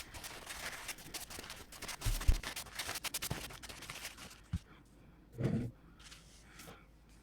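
A stone being wiped down by hand with isopropyl alcohol, rapid scratchy rubbing strokes that stop about four seconds in, followed by a few soft knocks.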